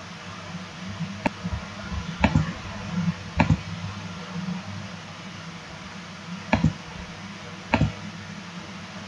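Computer mouse clicking: about five sharp clicks spread over several seconds, several of them in quick pairs, over a low steady hum.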